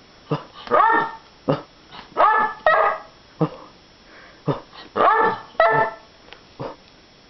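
Excited pet dog barking and yipping in short, high calls, several in quick pairs, with a brief lull about four seconds in: eager excitement at being taken for a walk.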